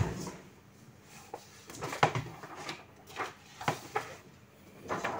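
Several light, scattered knocks and clatters of things being handled and moved about at a desk.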